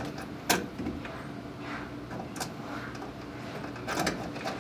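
A few sharp clicks and knocks from hand work on a Dodge Dart's steering column as it is fitted and fastened under the dash: a loud one about half a second in, another midway, and a cluster near the end, over a faint steady hum.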